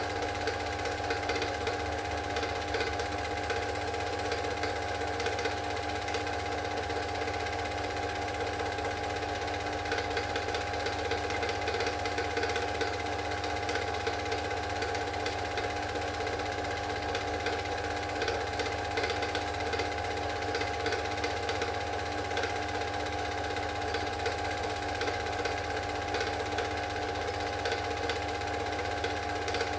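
Super 8 film projector running steadily: an even mechanical whir with a constant hum and a fast, regular clatter of the film transport.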